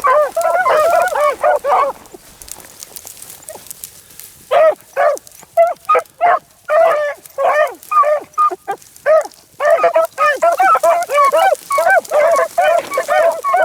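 A pack of beagles baying on a rabbit's trail, many voices overlapping in a steady chorus of arched, yelping bays. The pack falls quiet about two seconds in, then breaks into bays again a couple of seconds later and keeps going.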